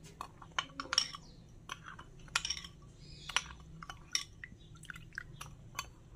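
A metal spoon stirring custard powder into milk in a ceramic bowl, clinking and scraping against the bowl in quick, irregular strokes.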